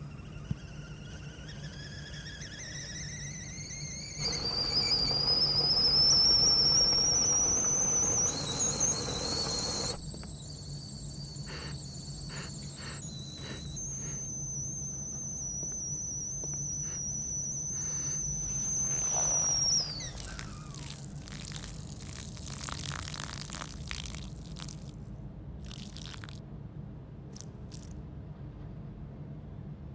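A high whistling tone that slowly rises in pitch, with a hiss joining it for several seconds, then holds steady and drops away sharply about two-thirds of the way through, followed by a few seconds of scattered crackling.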